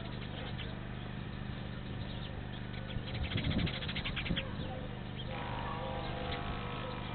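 Birds calling outdoors, with a quick rattling trill about three seconds in and thin drawn-out notes near the end, over a steady low hum.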